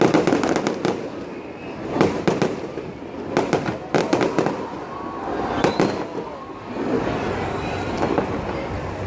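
Fireworks going off in quick clusters of sharp cracks and pops, with short gaps between volleys and fewer toward the end.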